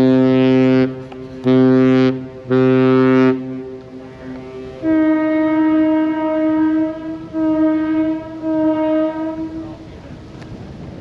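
Two boat horns sounding. A deep horn ends a long blast just under a second in and gives two short blasts; then a higher-pitched horn gives one long blast and two short ones.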